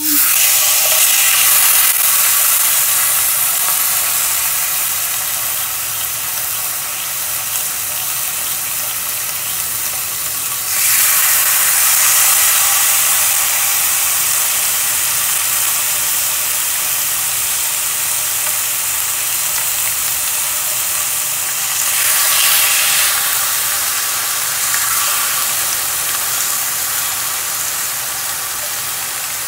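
Marinated chicken leg pieces sizzling loudly in hot oil on a ridged grill pan, starting as the first piece goes down. The sizzle jumps louder twice, about 11 and 22 seconds in, as more pieces are laid in.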